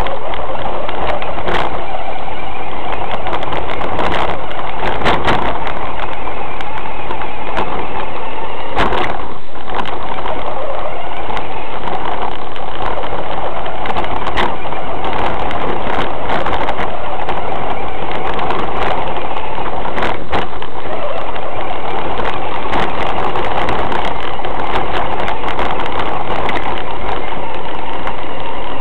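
Loud, steady motor and drivetrain noise from a 1/6-scale RC Hummer, picked up by its own on-board camera as it drives over dirt, gravel and grass, with scattered knocks and clatter from bumps and stones hitting the chassis.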